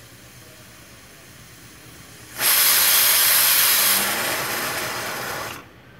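Aluminium pressure cooker's weighted whistle blowing off steam: a loud hiss starts about two and a half seconds in, lasts about three seconds, eases a little and cuts off. It is one of the whistles counted to time the cooking, the sign that the cooker has reached full pressure.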